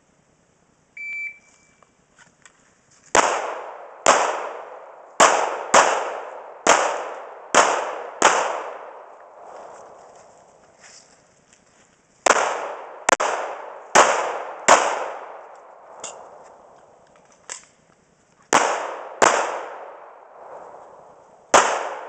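A shot-timer buzzer gives one short beep, then a pistol fires about fourteen shots in strings: seven shots about a second apart, a pause, four more, then three more spread out. Each shot leaves a ringing echo, and there are two fainter cracks between the second and third strings.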